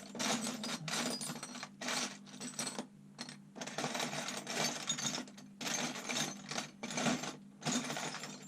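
Small metal parts being rummaged through and handled, clinking and rustling in short irregular bursts about once or twice a second, while the cylinder dowel pins are searched out.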